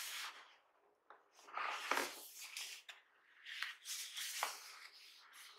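Gloved hands handling and turning a cardboard box: several rubbing and sliding swishes of the gloves against the box, with a knock about two seconds in as the box is set down or bumped.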